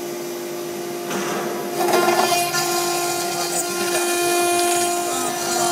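CNC router spindle whining at a steady pitch as its end mill cuts a pocket in sheet metal. The cutting noise gets louder about two seconds in as the cutter bites harder.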